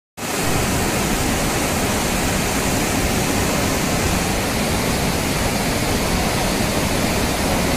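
Muddy floodwater from a cloudburst rushing down a swollen mountain river in a loud, steady, unbroken rush.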